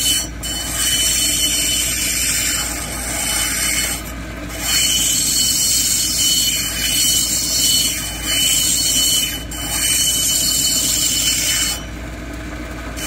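Plume agate held on a dop stick grinding against a spinning cabbing-machine wheel: a steady, high scraping hiss over the machine's hum. The hiss breaks off in short pauses each time the stone is lifted off the wheel, with a longer pause near the end.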